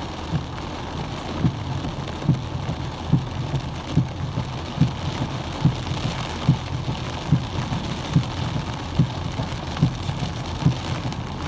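Windshield wipers sweeping in heavy rain, heard from inside the car: a low thump with each sweep, a little under one a second, over the steady hiss of rain on the car. The wipers are rain-sensing, their speed following how hard it rains.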